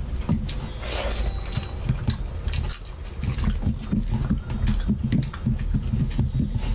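Close-miked eating sounds: wet chewing and lip-smacking from two people eating rice with rajma curry by hand, in quick irregular bursts.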